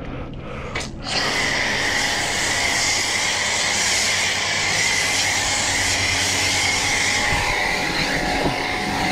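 Pressure washer foam cannon spraying thick snow foam: a loud steady hiss of the spray that starts about a second in, with a steady low hum underneath.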